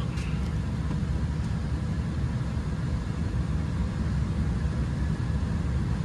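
Steady low rumble of an air-conditioning system running, with the air handler's blower pushing air through the insulated supply ductwork as it cools. A couple of faint clicks sound near the start.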